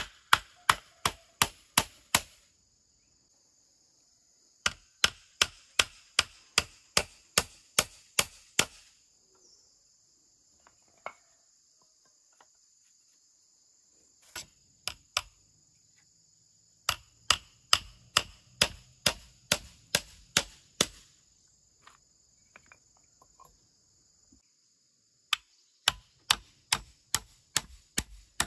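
Claw hammer nailing wooden sticks together, struck in runs of sharp blows about three a second with short pauses between runs.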